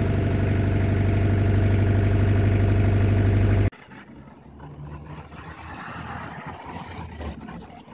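Fiat Ducato 230 diesel engine idling steadily, heard from inside the cab, just after a hard cold start on glow plugs. The engine sound cuts off suddenly a little under four seconds in, leaving only faint low background noise.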